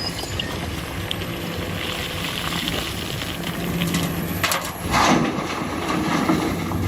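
Rustling and a few sharp knocks from handling toys and their packaging, over a steady low hum.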